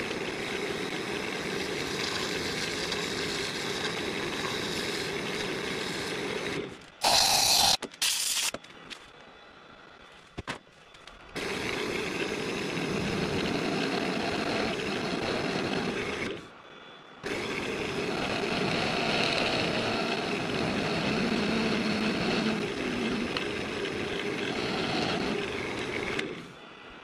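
Wood lathe spinning a blank of melted crayon wax while a turning tool cuts and hollows it, a steady scraping cut. It breaks off a few times into short quieter gaps, with a brief, much louder hissing burst about seven seconds in.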